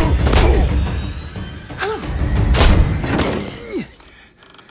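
Dramatic film score with several heavy thuds and impacts over it; the music drops away near the end.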